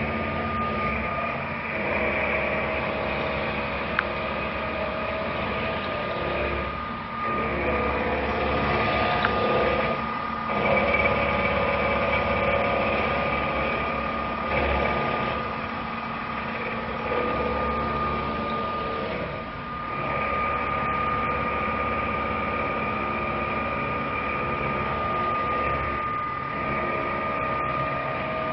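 Roku-Roku VERTIMAC-M CNC vertical machining center running, an end mill in its BT-40 spindle milling a metal block, with a steady high whine over a low hum. The cutting sound shifts and dips briefly every few seconds.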